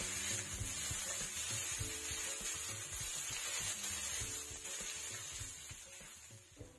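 Chopped onions sizzling as they fry in mustard oil in an iron wok, with a spatula scraping and stirring them, over soft background music. Everything fades out near the end.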